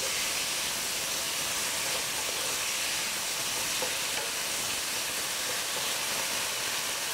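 Chicken wings sizzling in black pepper sauce in a nonstick frying pan while a wooden spatula stirs them, a steady hiss with a few faint scrapes and taps of the spatula.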